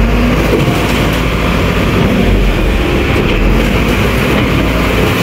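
Garbage truck running steadily close by: a loud, continuous low rumble.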